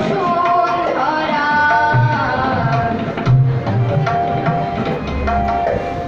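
Live music played on harmonium and tabla: a held, sustained harmonium melody over repeated deep and sharp tabla strokes.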